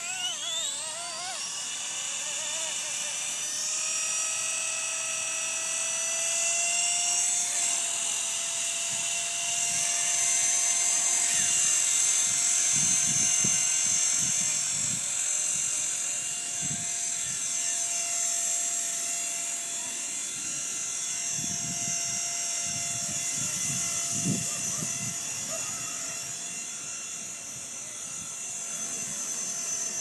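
Blade SR electric radio-controlled helicopter spooling up: the whine of its motor and rotor rises in pitch over the first several seconds, then holds steady as it flies. Gusts of wind rumble on the microphone now and then.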